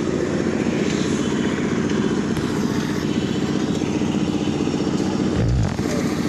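An engine running steadily at an even speed, with a short low thump about five and a half seconds in.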